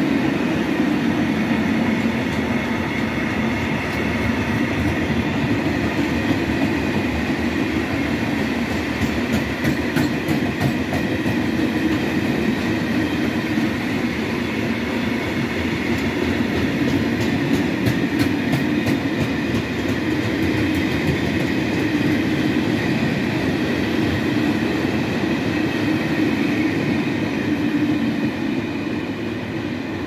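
Freight train of Eanos and Eas bogie open wagons rolling past close by: a steady rumble of steel wheels on rail, with clusters of sharp wheel clicks about a third of the way in and again just past halfway. The sound eases off near the end.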